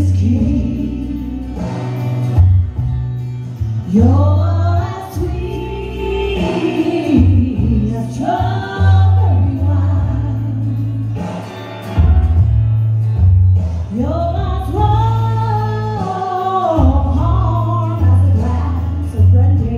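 A woman singing live into a microphone over instrumental accompaniment with a pulsing bass beat, holding long notes, two of them near the middle and the end.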